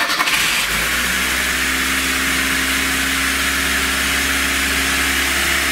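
Freshly rebuilt carburetted 1.6-litre engine of a VAZ 2107 catching on the starter within the first second and then running steadily on its first start after the overhaul.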